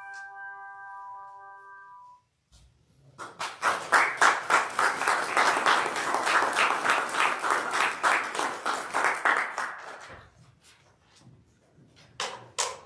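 Handbells' final chord ringing and dying away, damped about two seconds in, then a congregation applauding for several seconds before the clapping trails off. Two sharp knocks come near the end.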